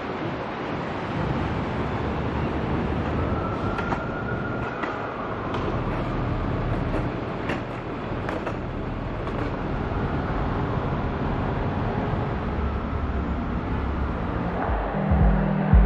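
Steady city street traffic noise, a low rumble with a faint whine that rises and falls a few seconds in. Background music with a pulsing beat comes in near the end.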